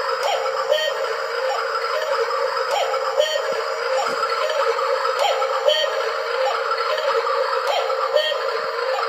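Cuckoo clock's electronic hourly sound playing, a woodland-and-bubbling-brook effect meant to be relaxing that comes out haunting: a steady wavering tone over a hiss, with the same short phrase of blips and clicks looping about every two and a half seconds.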